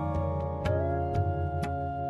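Background music: sustained tones over a soft, even beat about twice a second, with a bending melody line coming in about halfway through.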